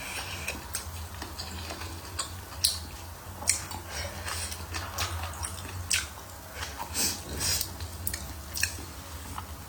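Close-up chewing of hotpot food, with sharp clicks scattered through, about one a second.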